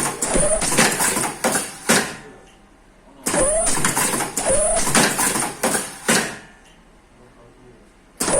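Face-mask ear-loop attaching machine running through its work cycles: spells of rapid clicking and clatter with short rising whines, about two to three seconds each, broken by pauses of a second or two.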